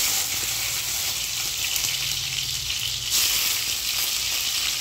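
Hot oil sizzling in a kadhai as wet, halved tomatoes are set into it. The sizzle is a steady hiss that gets louder as a tomato goes in at the start and again about three seconds in.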